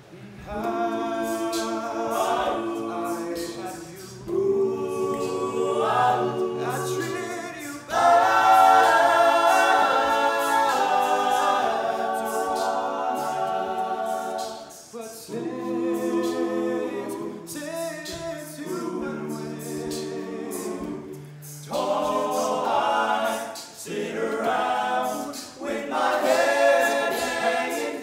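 All-male a cappella group singing a slow soul ballad: a lead voice over close-harmony backing vocals and a low bass line, in sustained phrases with short breaks between them.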